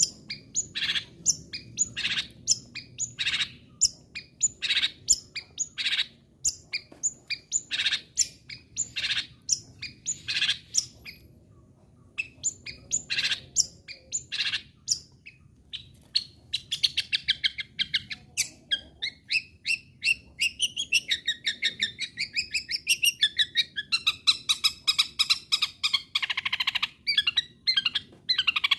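Long-tailed shrike singing: a series of short, sharp calls about one a second, then from about halfway a fast, continuous chattering song of rapid warbling notes.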